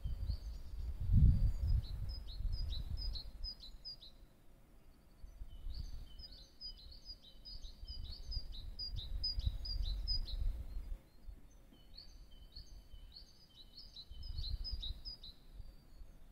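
A small songbird singing in three bouts of quick, high chirping notes, each a few seconds long. Under it runs an uneven low rumble, loudest about a second in.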